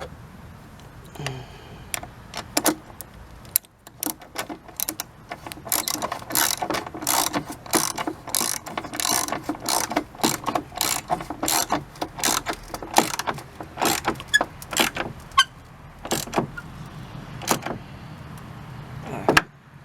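Ratchet wrench clicking as a rusty bolt is run down, the clicks coming in quick runs with short pauses; the bolt is a little rusty and binds now and then.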